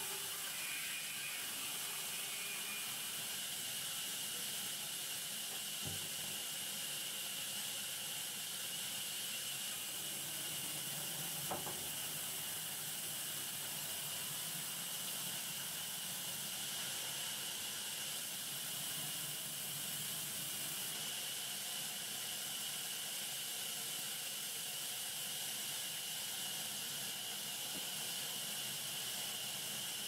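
Steady high hiss of a sawmill band saw as a log is fed through it, broken twice by a faint knock.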